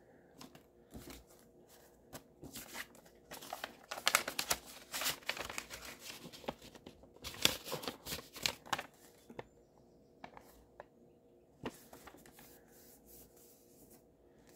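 Paper rustling and crinkling as banknotes and a paper envelope are handled, in bursts mostly through the middle, with a few light taps and clicks between.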